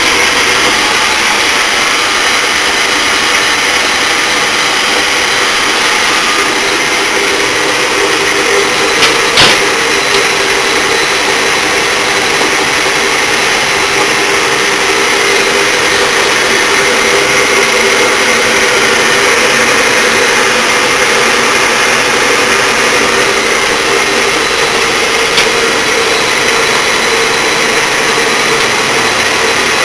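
Old turret lathe running under power from a 2 horsepower Brook electric motor through a pulley and idler drive: a steady machine hum and whine. A couple of sharp clicks come about nine seconds in, and one more near the end.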